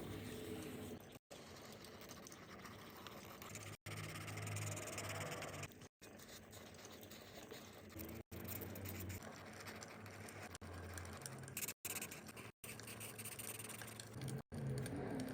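Faint scratching and crackling from coloring on paper beside a wood fire. Several very short gaps of silence break it up.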